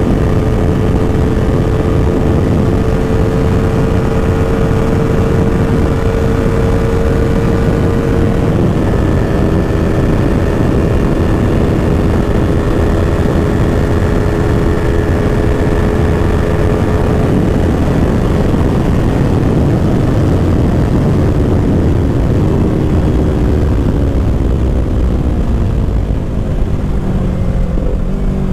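Yamaha R3's 321 cc parallel-twin engine running hard at speed during a top-speed run, under heavy wind rush on the camera microphone. The engine note climbs slowly, steps down once about eight seconds in, and sinks near the end as the bike slows.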